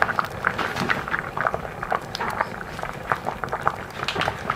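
Doenjang jjigae (Korean soybean-paste stew) boiling in a steel pot, its bubbles popping and blipping irregularly, several pops a second.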